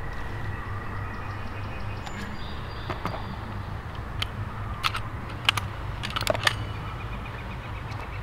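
Scattered sharp metallic clicks and clacks of a Glock 30SF .45 pistol being handled to clear a misfired round, a dud with a Winchester primer that did not go off. The clicks come from about three seconds in and bunch together near the end.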